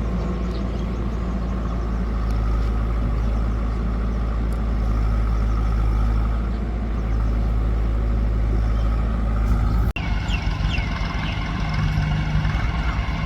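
Heavy diesel engine of farm machinery running steadily. About ten seconds in the sound breaks off sharply and another diesel engine takes over, running with a quicker throb.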